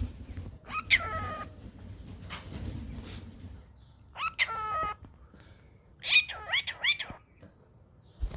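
Pet cockatiels calling: a short chirp about a second in, a longer call with a falling then level pitch around four seconds in, and a quick run of three or four chirps near the end, over a low rumble of handling or movement noise early on.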